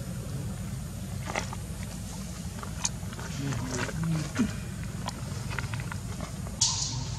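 Outdoor ambience: a steady low rumble with scattered light clicks and rustles, and a sharper rustle near the end.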